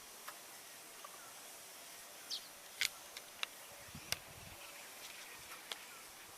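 Short, sharp chirps and call notes from small birds, scattered singly about half a dozen times, including one brief falling chirp, over a steady background hiss.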